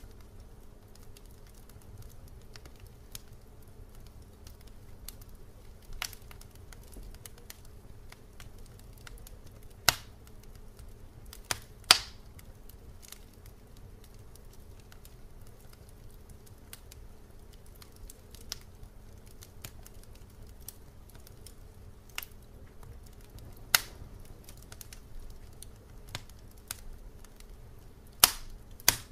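Sparse, irregular sharp clicks and pops over a steady low hum, the loudest about ten seconds in, twelve seconds in and near the end.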